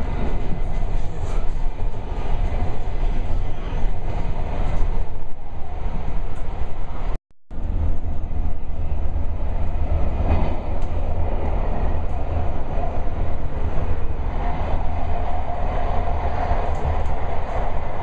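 Running noise heard from inside a MARTA rapid-transit railcar in motion: a steady, loud low rumble of wheels on the track. The sound cuts out for a moment about seven seconds in, and a higher hum joins for a few seconds near the end.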